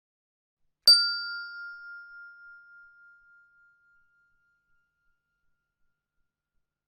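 A single bell ding about a second in, ringing out with a slightly pulsing tone and fading away over about three seconds.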